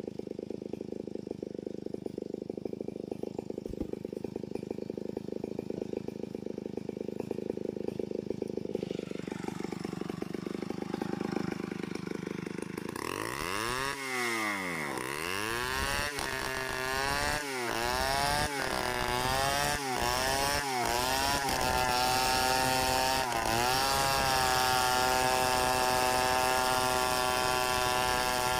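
Large two-stroke chainsaw idling, then from about halfway revved up and down several times as the bar bites into a log. It settles at a steady full-throttle note for the last few seconds, ripping lengthwise down the log in freehand chainsaw milling.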